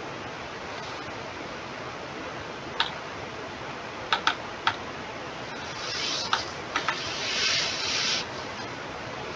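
Steady hiss from the microphone, broken by a handful of sharp single clicks at the computer: one about three seconds in, three in quick succession around four seconds, and a few more around six to seven seconds. Two soft rushes of hiss swell and fade between about six and eight seconds.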